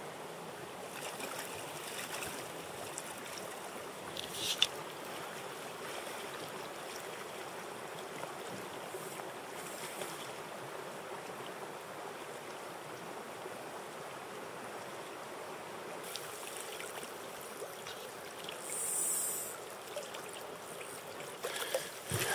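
Steady rushing of a river's current over a shallow riffle, with one short sharp click about four seconds in and a brief high hiss near the end.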